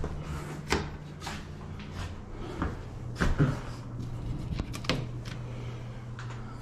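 Clicks and knocks from a bathroom medicine cabinet as its mirrored door is handled, opened and shut, a series of sharp knocks over several seconds. A low steady hum sits underneath.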